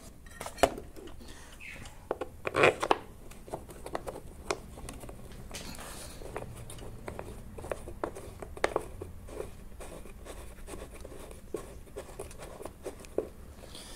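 Irregular clicks, knocks and scraping of a hard plastic cover on a small lawn mower engine being handled and worked at because it sticks.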